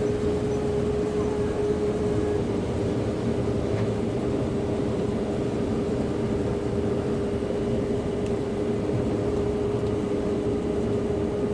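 Combine harvester running steadily while harvesting corn, a constant whine over a low rumble.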